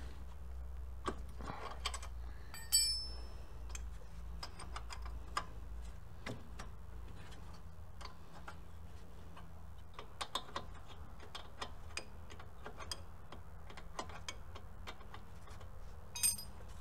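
Wrench working a rear brake caliper bracket bolt: a run of light, irregular metal clicks and ticks, with a short ringing metal clink about three seconds in and another near the end.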